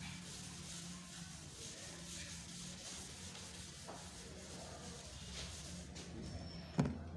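Blackboard being wiped with an eraser: repeated rubbing strokes across the board, with one sharp knock near the end.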